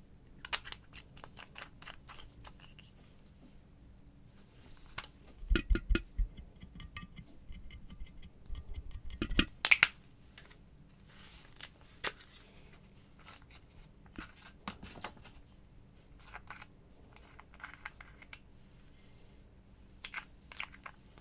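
Small plastic makeup cases and pots being handled, prised open and snapped shut, making sharp clicks and light crackling as pink makeup is broken up over a glass dish. There is a cluster of loud dull knocks about five to six seconds in, and another near ten seconds.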